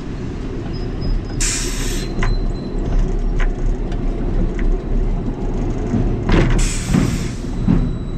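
Lightning Rod wooden roller coaster train rolling along the final brake run, its wheels rumbling on the track, with two sharp hisses of air from the pneumatic brakes, about a second and a half in and again about six and a half seconds in.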